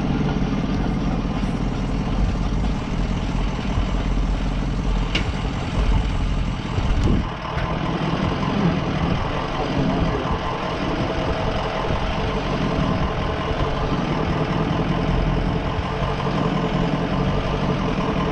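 Ford E350 Sportsmobile van's engine running steadily at crawling speed as the van descends a rough rock trail, with a sharp click about five seconds in and a knock around seven seconds.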